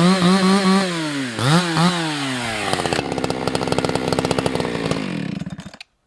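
Husqvarna 365 X-Torq two-stroke chainsaw running at high revs, its pitch wavering and dipping twice, then dropping to a lumpy idle about three seconds in. It is switched off just before the end.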